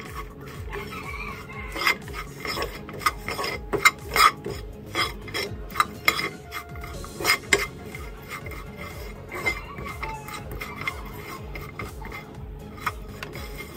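A metal spoon scrapes and clicks against a nonstick frying pan as chopped walnuts are stirred through a sticky coating. The scrapes and taps come irregularly and are busiest in the first half.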